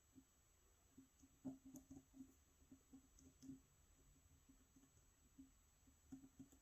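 Faint, irregular small clicks and ticks of a lock pick working the pins of a pin-tumbler cylinder lock held under tension, a little louder and closer together in the middle.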